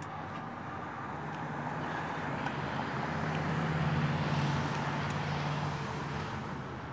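A motor vehicle passing by on the road: its tyre and engine noise swells to a peak about four seconds in, with a low engine hum, then fades.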